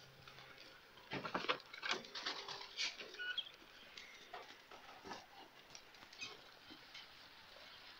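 Goats jostling and moving about in a pen: a cluster of irregular knocks and clicks about a second in, thinning to scattered soft taps.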